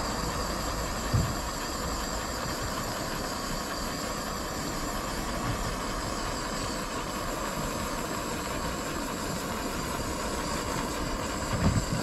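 Butane mini-torch jet flame hissing steadily while it heats shrink tubing over a crimped wire terminal, with a brief knock about a second in and another near the end.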